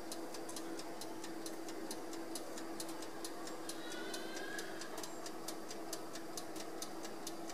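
Fast, even clock-like ticking, about four to five thin ticks a second, over a steady low hum.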